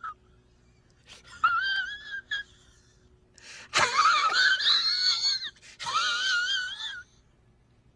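A high-pitched, wavering wail with a quick wobble in pitch, heard as a short cry, then a longer one that starts with a sharp hit and slides down, then a third one. This is a meme sound effect.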